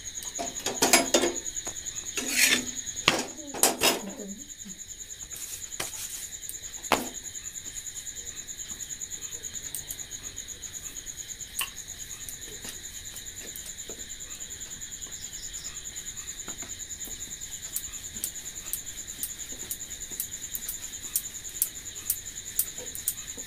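Crickets chirping in a steady high trill, with light clicks and taps of a wooden rolling pin on a steel plate as roti dough is rolled out; the clicks come in a quick regular run near the end. A voice is heard in the first few seconds.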